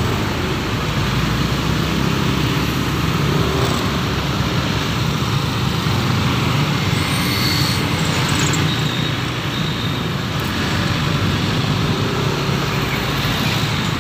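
Bored-up 190 cc single-cylinder Yamaha Aerox scooter engine running at low speed in slow traffic, mixed with the steady noise of the motorbikes, cars and lorry around it.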